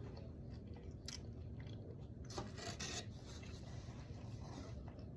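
Faint chewing of a salad, with a few short crisp crunches about a second in and again around the middle.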